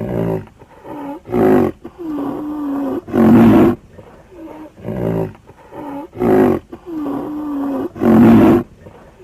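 Rhinoceros calls: loud short calls alternating with lower drawn-out tones, the same sequence played twice.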